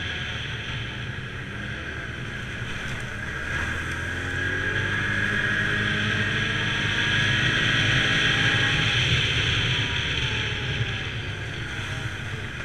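ATV engine running under way on a gravel trail, with tyre and wind noise on the microphone; it grows louder for several seconds in the middle as the engine pitch rises and falls with the throttle.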